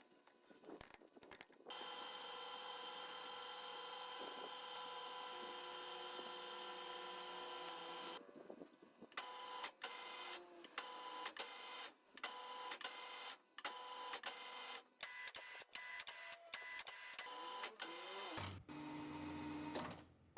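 A small electric machine motor running with a steady whine, then stopping and restarting in short runs about once a second, with a lower hum near the end.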